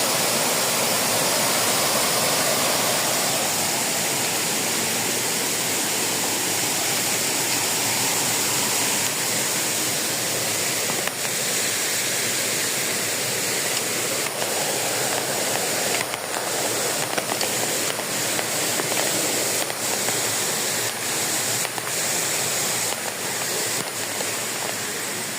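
Waterfall: a steady rush of falling water, with a few faint light clicks in the second half.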